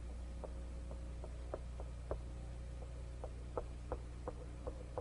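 Background noise of an old film soundtrack: a faint steady low hum with irregular soft clicks and pops, about three a second, like the dust crackle of a worn optical sound track.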